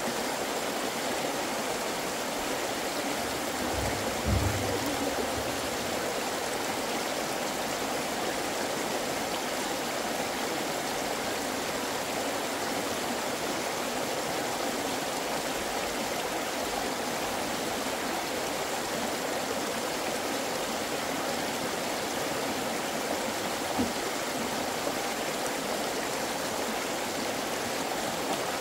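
Steady rushing noise with no change in level, with a brief low thump about four seconds in and a smaller one near the end.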